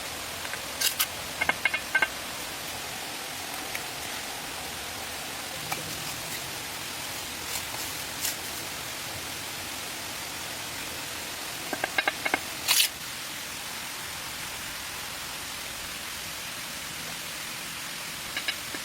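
A steady rushing hiss, with a few short sharp clicks and taps about a second in, again near two seconds, and a cluster around twelve to thirteen seconds.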